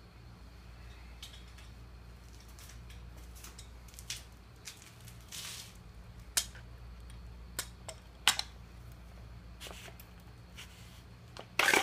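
Pliers working on the plastic body of an Irrigreen sprinkler head: scattered sharp clicks, knocks and a short scrape, with a loud crackling snap near the end as the part gives way.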